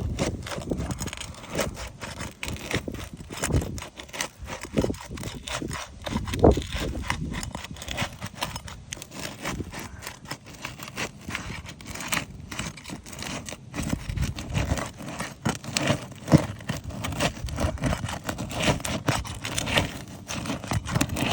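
Asphalt roof shingles being pried up and worked with a roofing tool: continuous scraping and crackling with many sharp ticks and knocks, as the shingles are lifted to test how pliable they are and check for tears.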